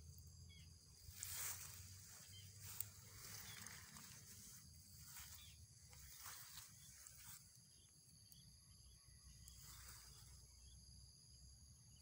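Near-silent outdoor ambience: faint rustling from the handheld phone being moved about, with one small click about three seconds in.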